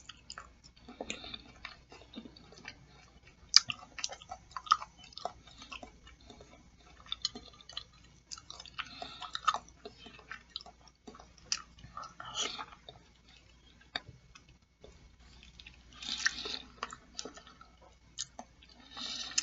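Close-miked chewing of boiled chicken feet, with many scattered sharp mouth clicks and short irregular bursts of noise.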